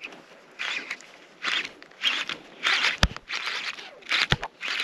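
Saint Evox baitcasting reel being cranked in short bursts, a rasping whir roughly every half second as the soft plastic lure is worked, with a couple of sharp knocks from the rod and tackle.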